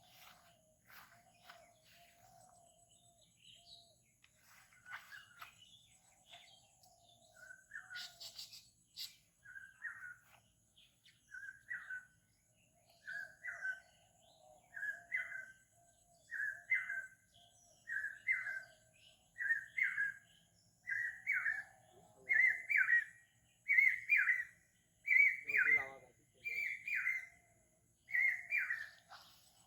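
A bird calling outdoors: after some faint scattered chirps, one call note is repeated about every second and a half, creeping higher in pitch and getting louder with each repeat.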